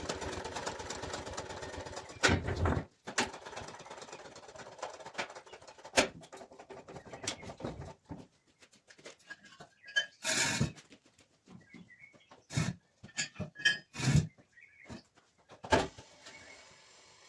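Irregular knocks and clunks of hand work on a muck spreader's drawbar, with a short noisy burst about ten seconds in.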